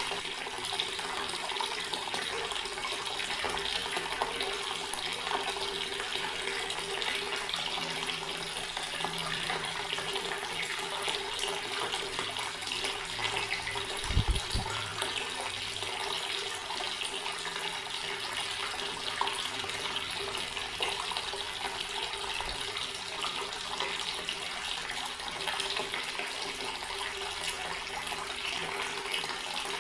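Outdoor water tap running steadily, its stream splashing, with a single brief low thump about halfway through.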